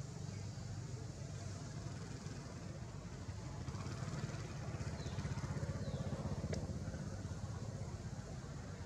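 A motor engine running steadily in the background, a low pulsing rumble that swells slightly in the middle, with two short high falling chirps midway.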